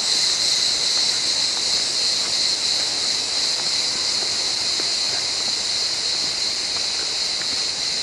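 Steady, high-pitched drone of an insect chorus, without a break.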